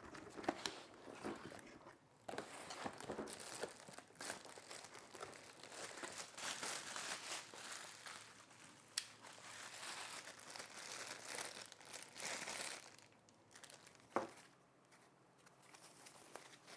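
Quiet crinkling and rustling of packaging being unwrapped by hand, with scattered small clicks, then a single sharp knock about fourteen seconds in.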